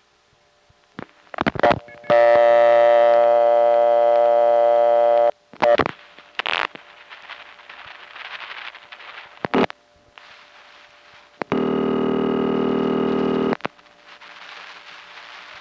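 Old analog telephone line heard down a payphone: a buzzy, many-pitched tone for about three seconds, then clicks from dialing and switching, a stretch of faint line hiss, and a second buzzy tone for about two seconds, which leads into a 'not in service' intercept recording.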